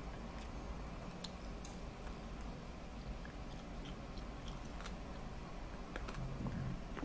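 A person chewing tandoori chicken, with scattered small clicks through the chewing.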